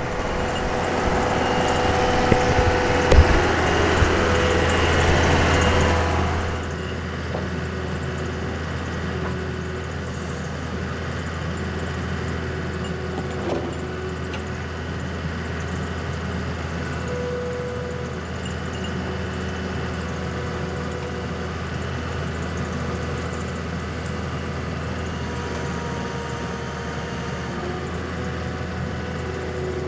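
Skid steer engine running. It is louder for the first six seconds or so, with a few sharp knocks, then settles to a steady idle.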